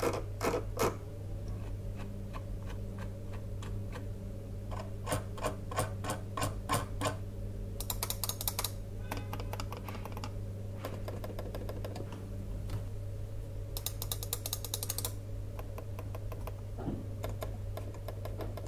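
Computer mouse buttons clicked one mouse after another: the sharp, clear clicks of a conventional mouse, with two short runs of rapid ticking, then much fainter, muffled clicks from the Logitech M330 Silent Plus and M220 Silent silent-switch mice. A steady low hum runs underneath.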